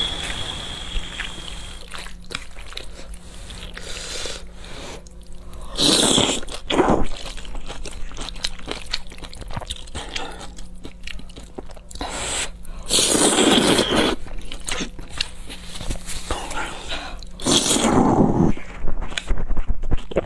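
Close-miked eating of black bean sauce noodles: wet chewing and lip smacking. Louder slurps come about six seconds in, around thirteen seconds, and again near the end.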